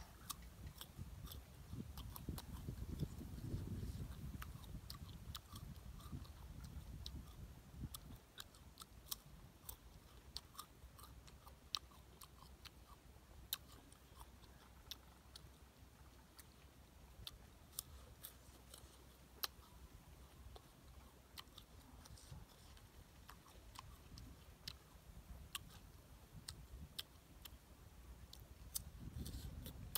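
Close-up biting and chewing of raw guava slices, with many sharp, crisp crunches throughout. The chewing is heavier in the first several seconds and again near the end.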